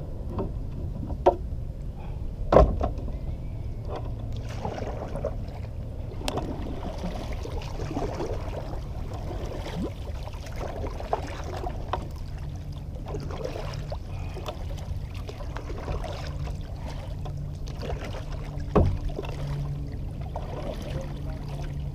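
Wind buffeting the microphone as a steady low rumble, with scattered knocks on a kayak, the loudest about two and a half seconds in and again near the end.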